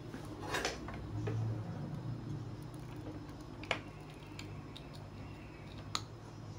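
Light handling and tool noise at a circuit board while an IC is being desoldered and pulled from an old charger board: a few sharp clicks and faint ticks spaced a couple of seconds apart, over a low steady hum.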